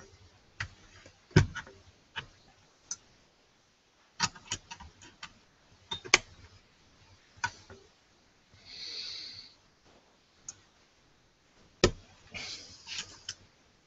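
Irregular small clicks and taps of metal and plastic computer parts being handled: a steel 2.5-inch hard-drive tray, its screws and the mini-PC board being fitted together by hand. A short hiss comes about nine seconds in.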